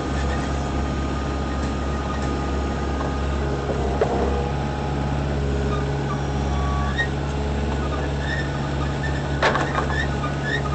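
Moffett truck-mounted forklift's engine running steadily, heard from the driver's seat as the machine works. A knock comes about four seconds in and a sharper clatter near the end, with faint short high beeps in the second half.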